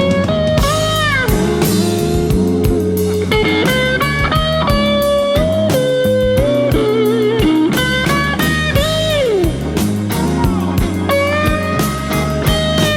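Slow blues instrumental passage: an electric guitar solo with bent and sliding single notes over bass and drums.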